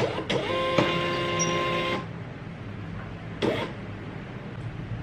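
Thermal label printer printing, its paper-feed motor giving a steady whine of several tones for about two seconds before stopping. A short click comes about three and a half seconds in.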